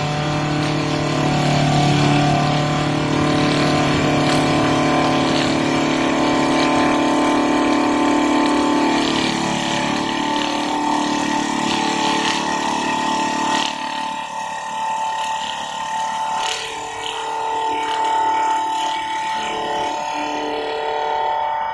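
CNC wood lathe running, its motor-driven abrasive brush wheel spinning against a turned wooden spindle: a steady motor hum under a whirring, sanding hiss. About two-thirds of the way through, the lower part of the hum drops away and the sound turns slightly quieter and more uneven.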